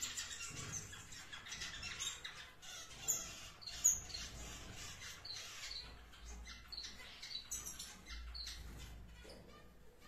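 Aviary finches chirping, a steady scatter of short high chirps and calls, with two louder calls about three and four seconds in.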